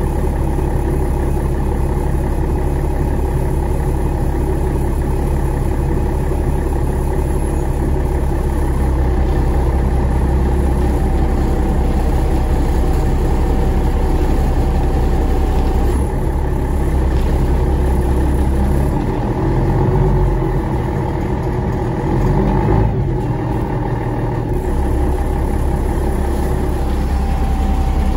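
GolAZ-AKA-5225 articulated city bus heard from inside while riding: steady engine hum and road noise. Past the middle the low engine rumble changes and turns uneven for several seconds, then settles again.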